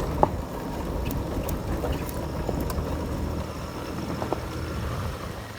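Low, steady rumble of a vehicle under way, with a sharp click just after the start and a few lighter knocks.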